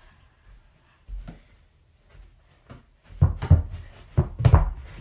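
A soft knock about a second in, then a run of loud, dull thuds and knocks from about three seconds in, in two pairs. These come from a person moving on a carpeted floor and handling the plastic laundry hamper as he retrieves his shot.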